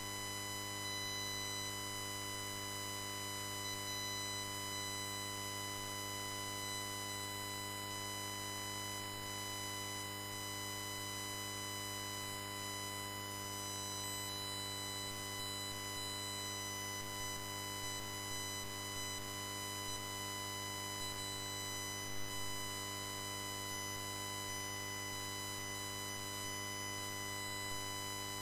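Steady electrical hum-buzz with many evenly spaced overtones, unchanging in pitch and level throughout.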